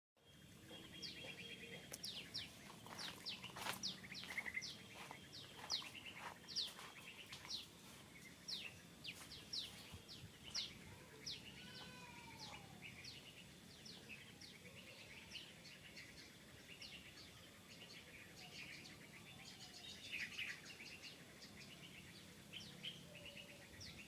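Birds chirping: a long run of short, high chirps, each sliding quickly downward and repeated about once or twice a second, with a few other lower calls mixed in.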